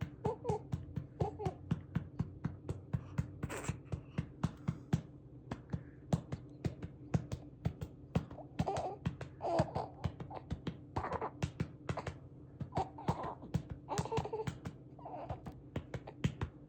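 Hand patting a one-month-old baby's back to bring up a burp, a steady run of pats about three a second. The baby makes short vocal sounds now and then, more of them in the second half.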